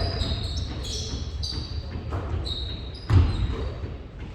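Basketball game on an indoor court: sneakers squeaking on the floor and a ball bouncing, with one loud knock about three seconds in.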